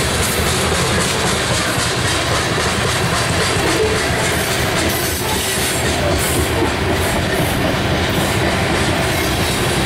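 Loaded coal cars of a BNSF unit freight train rolling past close by: the steel wheels run steadily and loudly on the rails, with no break in the sound.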